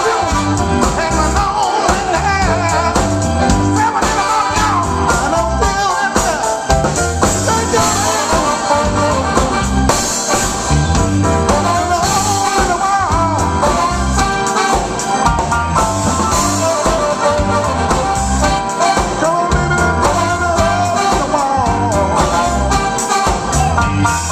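Live band playing with a steady beat: electric bass, a horn section with trombone and saxophone, and a man singing lead.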